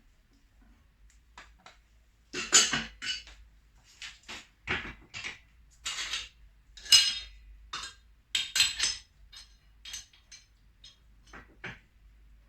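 Irregular metallic clinks and knocks, about a dozen, of hand tools and steel shock-absorber parts being handled and struck while a motorcycle rear shock is worked apart.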